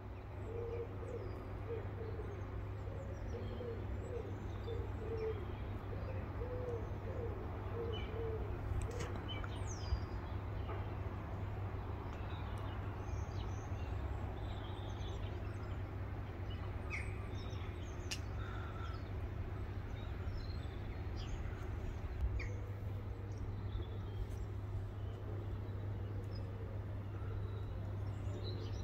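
Birds calling: a run of low hooting or cooing calls in the first eight seconds or so, then scattered short high chirps, over a steady low rumble.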